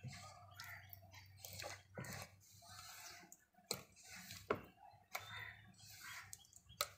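Hand mixing thick gram-flour batter in a steel pot: faint wet squelches and sloshing, broken by a few sharp clicks. A low steady hum runs underneath.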